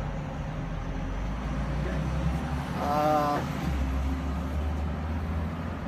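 Steady low rumble of background noise, with one short voiced sound from a person, like a held 'mmm', about three seconds in.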